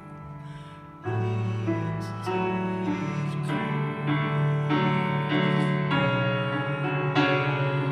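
Solo grand piano played live: a few quiet notes, then about a second in a deep bass note and full chords come in, and the playing grows louder.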